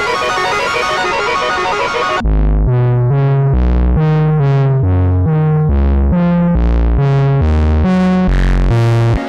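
Akta G-1 synthesizer played dry, with no effects added. A dense, busy many-note texture cuts off about two seconds in. A bass line of separate notes follows, about two a second, each note brightening and then fading away.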